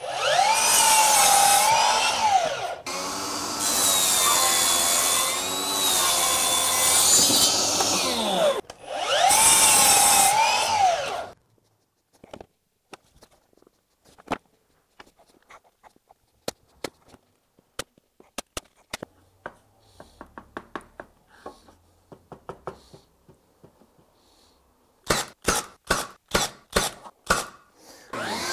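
Cordless sliding miter saw running and cutting wood for about the first eleven seconds, in three long runs, its whine dipping and recovering. After that come scattered light clicks and knocks. Near the end there is a quick run of about seven sharp knocks.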